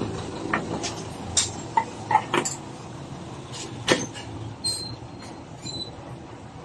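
Parts and tools being handled at a workbench: a scattering of light clicks and knocks, the loudest about four seconds in, over a faint steady hum.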